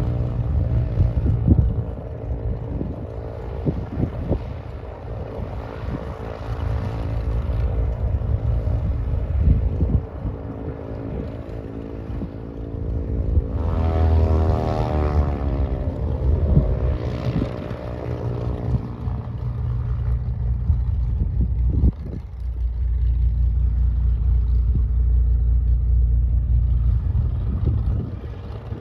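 Light propeller airplane's piston engine running, its pitch sweeping up and back down about halfway through, over a steady low rumble.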